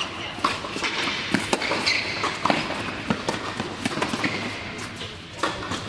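Tennis rally on an indoor hard court: racquets strike the ball and the ball bounces, giving a series of sharp knocks. Short high squeaks of sneakers on the court come in between.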